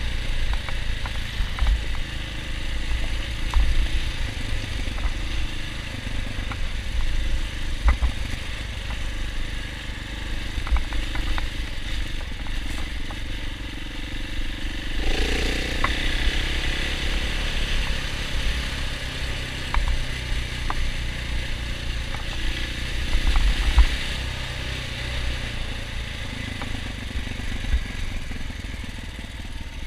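KTM 690 Enduro R's single-cylinder engine running at low speed along a dirt lane, with scattered clicks and rattles from the bike over the rough track. About halfway through the sound grows louder and harsher for a few seconds.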